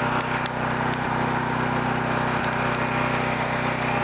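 Champion 9000-watt portable generator (model 41532) running steadily, with a drill and a fan plugged into it as load; an even, unchanging engine drone.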